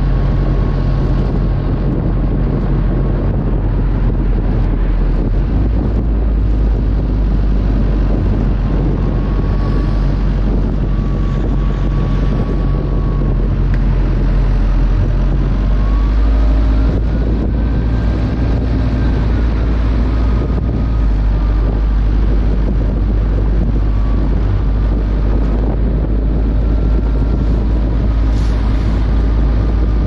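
Wind noise buffeting the microphone of a car-mounted GoPro Hero 5 while the car drives, a loud steady rumble with road noise beneath. A faint whine rises and falls around the middle.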